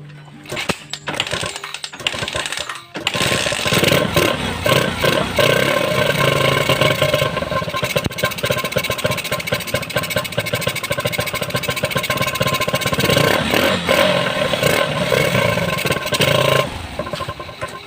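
Suzuki GD110 single-cylinder four-stroke engine being started on its newly fitted Bajaj-type carburettor. It turns over briefly, catches about three seconds in and runs loudly, then drops to a quieter idle near the end. The engine, which had been hard to start, now starts and runs well.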